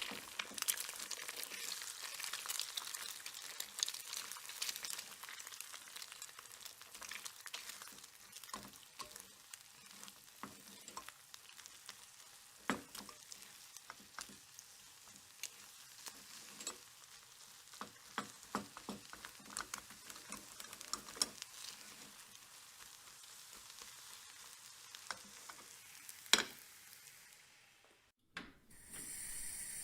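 Eggs frying: a steady sizzle with scattered crackling pops. The hiss is strongest at first and slowly dies down, with one louder pop near the end.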